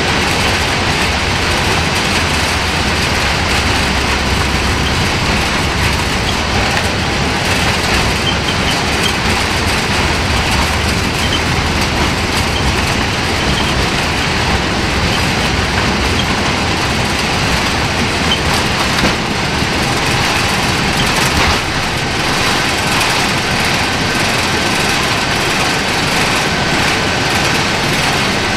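Cabin noise of a Boeing 747-8 on its takeoff roll: the engines run at takeoff thrust with a steady loud roar, over a heavy runway rumble that falls away about twenty seconds in as the aircraft lifts off.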